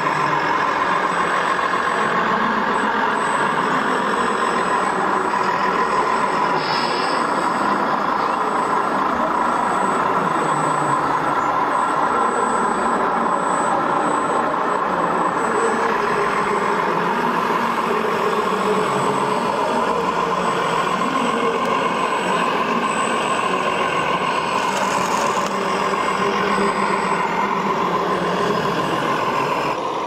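Engine sound from the loudspeaker sound module of a radio-controlled Mercedes-Benz tipper truck model, imitating a running diesel truck, over the steady din of a busy hall.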